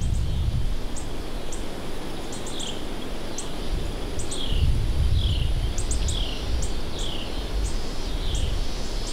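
Strong wind buffeting the microphone: a low rumble that surges and eases. Over it, a bird repeats short downward-slurred calls about once a second, with sharp high chips in between.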